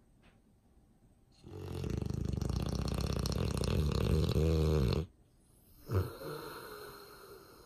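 A sleeping dog snoring: one long, loud rattling snore from about a second and a half in that cuts off sharply at about five seconds. About a second later comes a short, sharp breath, then a softer breath out.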